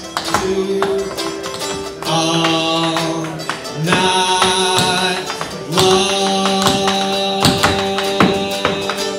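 Instrumental stretch of an upbeat recorded song with long held notes, over which tap shoes click sharply and unevenly on a hard floor as the dancer steps.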